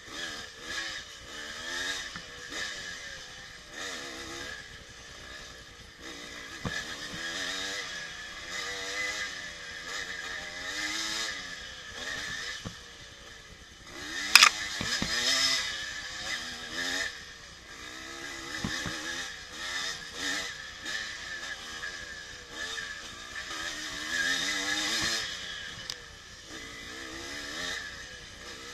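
1984 Yamaha IT200's two-stroke single-cylinder engine revving up and down with the throttle while being ridden, its pitch rising and falling constantly. A single sharp knock about halfway through is the loudest sound.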